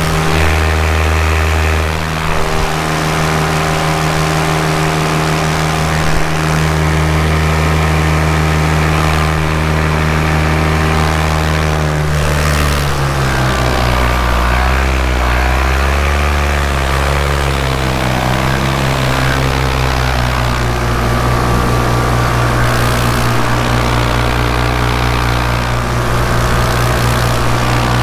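An engine running steadily with a droning pitch that drops about halfway through, wavers up and down for a few seconds, then holds steady at the lower pitch.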